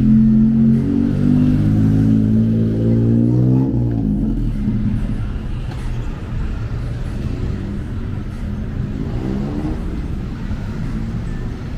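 A motor vehicle's engine running close by with a steady low hum, then rising in pitch and fading as it pulls away about four seconds in, over the steady noise of passing street traffic.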